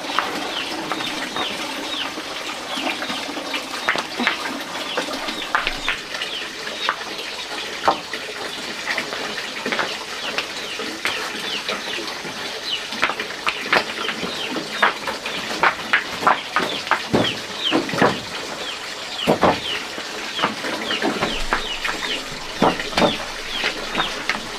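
Birds chirping: many short, high, falling chirps, several a second, with a few louder knocks here and there.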